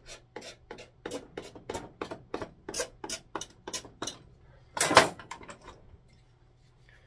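Four-in-hand rasp being pushed in quick strokes across a wooden saw handle, about three to four rasping strokes a second for roughly four seconds, cleaning grime and finish off the wood. About five seconds in comes a single louder clatter, followed by a few light clicks.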